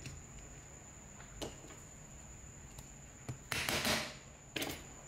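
Metal handling sounds as a keyed drill chuck is fitted onto the spindle of an old Shinko electric drill's gear housing: a few light clicks, then two short rough bursts, the louder one a little past the middle.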